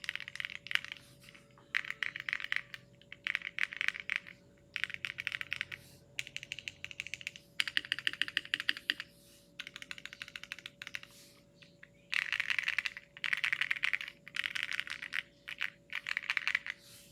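Typing on a plateless polycarbonate Thera75 mechanical keyboard with Designer Studios Starry switches and PBT cherry-profile keycaps. The key clacks come in fast runs about a second long, separated by short pauses.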